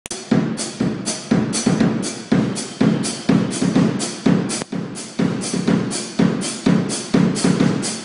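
Acoustic Tama drum kit played as a solo: a fast, steady run of drum hits with cymbal strikes, several a second.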